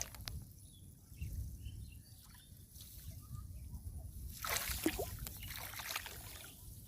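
Water sloshing against a small boat, with a louder splash about four and a half seconds in, over a steady low rumble.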